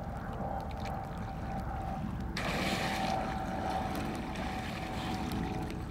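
Water splashing and sloshing around a swimmer in a cold river as he swims and then rises to wade, louder from about two seconds in, over a steady low wind rumble on the microphone and a faint steady hum.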